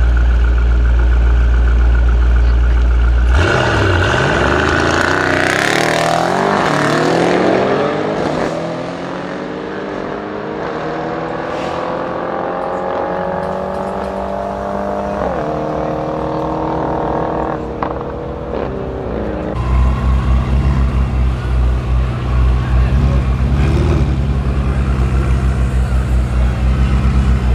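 Mercedes-AMG E63 S and ABT Audi RS6, both twin-turbo V8s, held loud on the start line, then launching about three seconds in and accelerating away hard, their pitch climbing and dropping at each gear change as they fade into the distance. Near the end, a Ferrari F8 Tributo and the E63 rev at the line with a fast, pulsing engine note.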